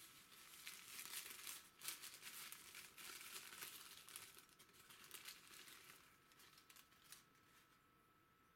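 Thin tissue-paper wrapping crinkling and rustling as hands unfold it, a dense run of crackles that dies away near the end.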